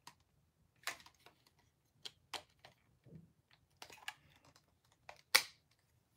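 Hard plastic parts of a Ryusoulger Kishiryu dinosaur toy clicking and snapping as they are handled and clipped together: a dozen or so short, irregular clicks, the loudest a little over five seconds in.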